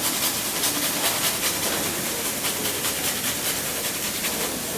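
Garlic being grated on a hand grater in quick scraping strokes, about three or four a second, over the steady sizzle of onions and chilies frying in oil in the pan. The strokes stop near the end, leaving the sizzle.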